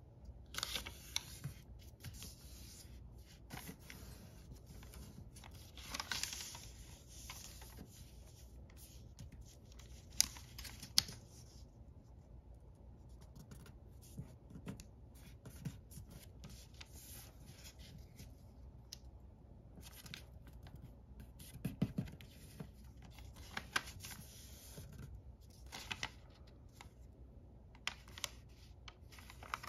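Sheet of origami paper being folded and creased by hand: irregular rustling and crinkling, with a few sharp crackles as the folds are pressed flat.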